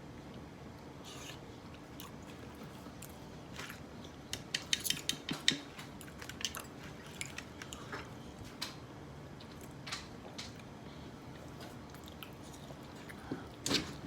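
People eating a seafood boil of crab legs and shrimp: chewing, with a quick run of sharp cracks and clicks about four to six seconds in and scattered single clicks after that, typical of crab shells being broken and picked.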